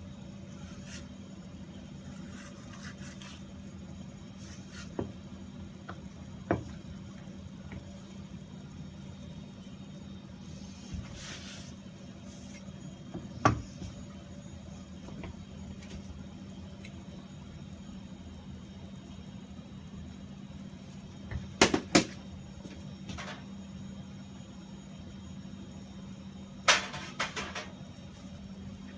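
Scattered sharp knocks and taps of a knife and fish meat against a cutting board while a bluefin tuna section is cut up: single knocks spaced several seconds apart, then two quick clusters of three or four near the end. A steady low hum runs underneath.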